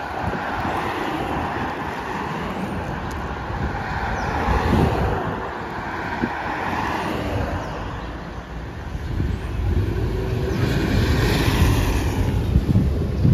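Motorcade vehicles (SUVs, a red emergency vehicle, then a police motorcycle) driving past one after another, engine and tyre noise swelling as each goes by, loudest near the end as the motorcycle passes close. Wind buffets the microphone with a low rumble.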